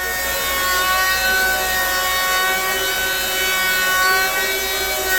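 Bauer 20-volt cordless planer running at full speed and planing wood: a steady, many-toned motor whine over a loud rushing hiss of cutting.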